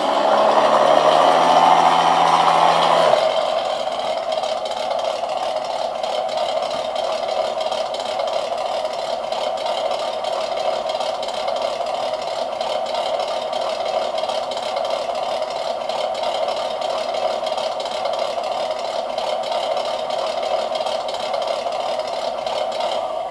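Simulated V8 engine sound from an RC crawler's sound unit, louder and revved up for the first three seconds, then running at a steady idle.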